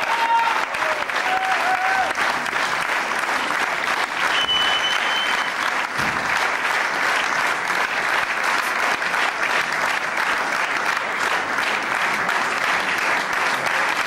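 Theatre audience applauding steadily, with a short high whistle about four seconds in.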